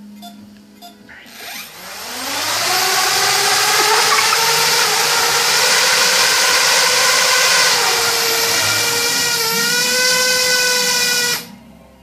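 Parrot Bebop quadcopter's brushless motors and propellers spinning up with a rising whine and rushing hiss, running loud and steady with a slight dip and rise in pitch, then cutting off suddenly near the end.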